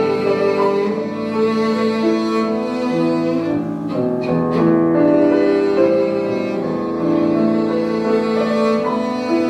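Cello and piano playing a classical piece together: long bowed cello notes moving from pitch to pitch over a piano accompaniment.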